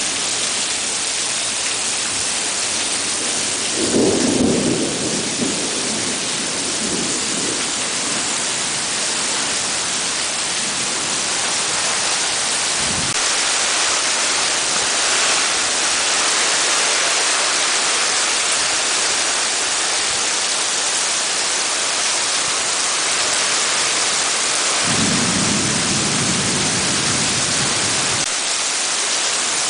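Heavy rain pouring down in a steady hiss, with a loud burst of thunder about four seconds in and a low rumble of thunder near the end.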